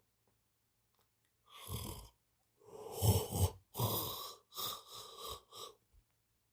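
Cat snoring in its sleep: a run of about six snoring breaths, the middle two the longest and loudest, the last few short.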